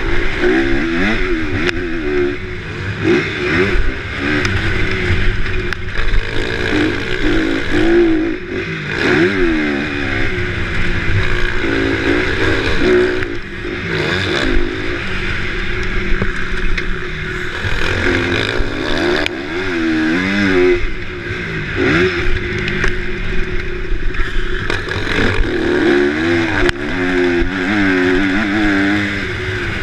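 Motocross bike engine heard close up from an onboard camera, revving up and dropping back again and again as the rider accelerates, shifts and slows through the corners, its pitch rising and falling every second or two.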